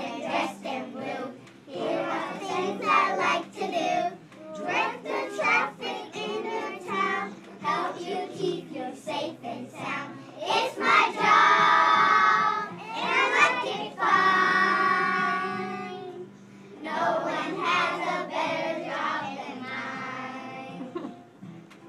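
A group of young children singing together in unison, with two long held notes about halfway through.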